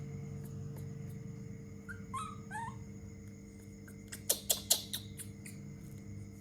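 A monkey gives a few short squeaky chirps about two seconds in, then a quick run of sharp clicks comes a little after four seconds.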